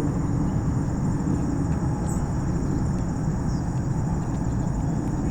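Outdoor ambience: a steady, high, pulsing trill of insects over a continuous low rumble, with a couple of faint short chirps.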